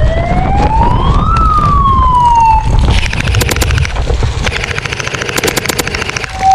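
A siren tone that rises for about a second and a half, then falls away. It is followed by two bursts of rapid clicking, the second starting about five seconds in.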